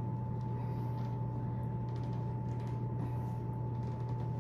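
Steady low hum of room air handling with a thin constant whine, and faint rustling of a towel as a sparkling wine cork is twisted by hand; the cork has not popped yet.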